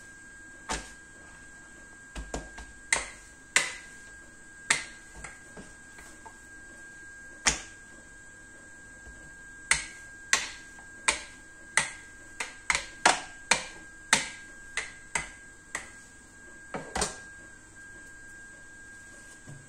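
Plastic rolling pin working dough on a plastic chopping board: irregular sharp clicks and knocks, coming thickest in the second half and stopping a few seconds before the end.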